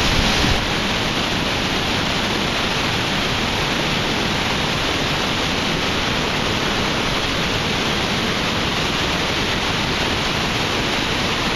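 A waterfall's steady, even rushing noise, heard close to the falls.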